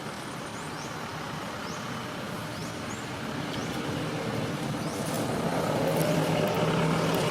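A motor vehicle's engine running, its hum growing louder over the last few seconds as it comes closer. Short high chirps repeat about once a second.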